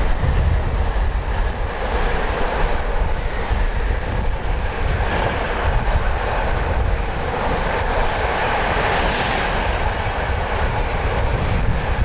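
A train passing at speed, a steady rushing sound, with strong wind buffeting the microphone.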